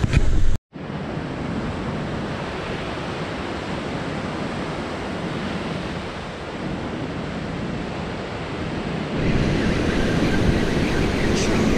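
Ocean waves breaking and washing onto a sandy beach, a steady rushing noise mixed with wind. It drops out for an instant just after the start and gets louder about nine seconds in.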